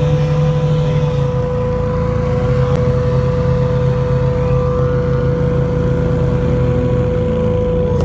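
Christy 9205 FC hovercraft running at speed over the sea, its thrust and lift engines making a loud, steady drone with a strong constant whine, heard from inside the cabin.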